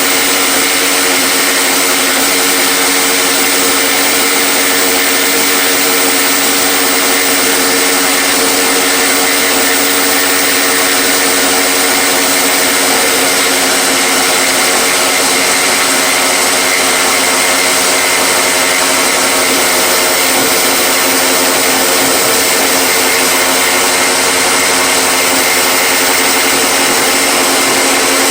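Electric power tool motor running steadily for the whole stretch, a constant hum with a strong hiss over it.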